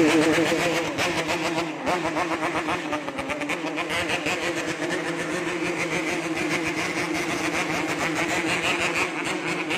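Yamaha RX-King single-cylinder two-stroke motorcycle engine being revved hard. The revs rise and fall over the first couple of seconds, then hold steady at high speed.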